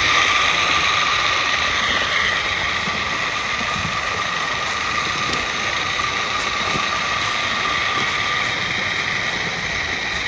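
A 32mm gauge live steam narrow-gauge locomotive running on the track, with a steady hiss.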